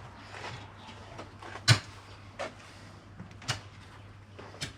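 A few scattered sharp knocks and clicks, the loudest about two seconds in, over a faint steady low hum.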